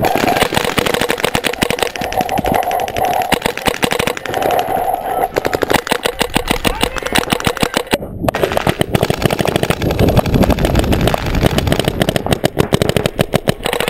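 Planet Eclipse Etek 4 electronic paintball marker firing fast strings of shots, many a second, with a short break about eight seconds in.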